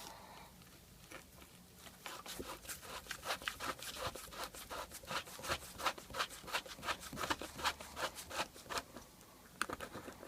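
A hand tool scraping and gouging at the hollow of a shaving brush handle in quick, irregular strokes, about two to three a second, digging out the old glued knot. The strokes start about two seconds in and stop near the end.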